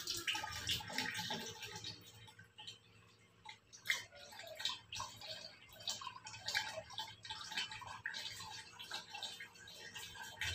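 Thin stream of water from a water ionizer's outlet hose trickling and splashing into a large plastic water jug, in an uneven spatter with a sharper splash about four seconds in.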